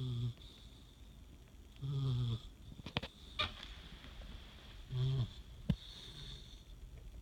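Snoring: three short, buzzing snores about two and a half to three seconds apart, with a few sharp clicks in between.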